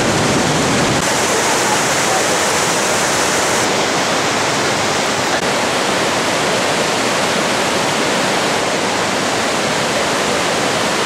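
Loud, steady rush of a white-water mountain river tumbling over rocks through a narrow rocky gorge.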